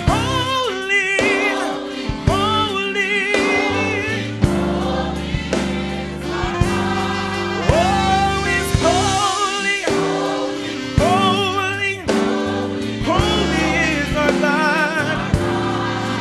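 Gospel choir singing with instrumental backing. Sung lines waver with vibrato over sustained low chords, with a fresh sung phrase about every second or two.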